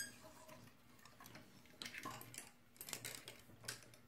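Faint scattered clicks and taps of a large plastic transforming-robot figure's joints and parts being moved by hand as it is posed, a few of them in the second half.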